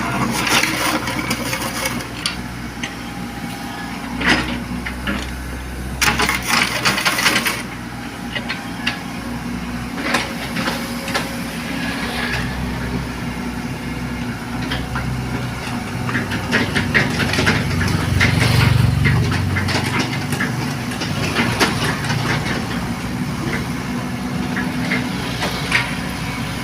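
Excavator's diesel engine running, working harder for a few seconds around eighteen seconds in, with scattered clattering and scraping as it handles sand.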